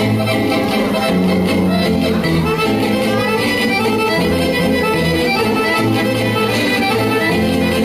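Serbian folk dance music, with an accordion carrying the tune over a steady, repeating bass beat.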